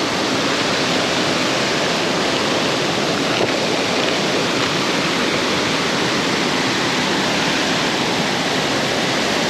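Waterfall pouring into its pool close by: a steady, unbroken rush of falling water.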